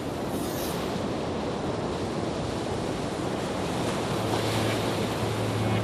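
Firework burning with a continuous, dense hissing crackle. A low steady hum joins it about two-thirds of the way through.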